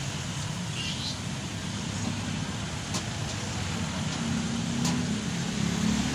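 Motor vehicle engine running steadily, a low hum that grows a little louder in the second half, with two faint clicks.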